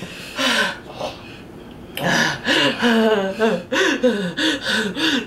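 A woman's pained moaning and gasping as the extra-spicy food burns her mouth: a short outcry in the first second, then a string of rising-and-falling moans over the last three seconds.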